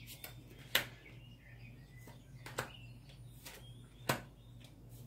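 Oracle cards being pulled from a deck and laid on the table: a few sharp card snaps and taps spread over several seconds, with faint chirps in between.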